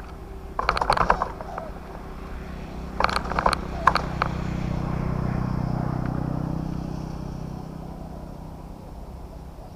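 A motor vehicle's engine passes by, swelling to its loudest about halfway through and slowly fading away. Short sharp bursts come near the start and again around three to four seconds in.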